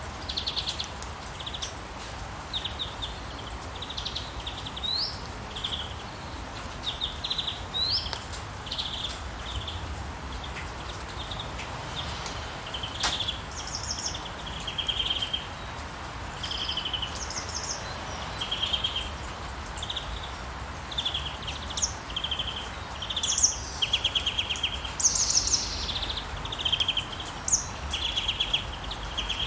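Songbirds chirping and trilling in short, repeated phrases over a steady hiss of falling rain, with a low rumble underneath.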